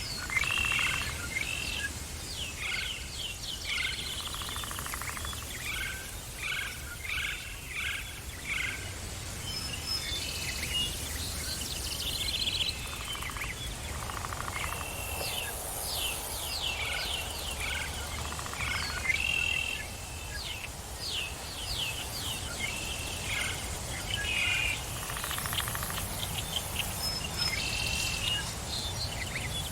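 Several songbirds chirping and singing in a forest, in quick repeated short notes, over a steady low background noise.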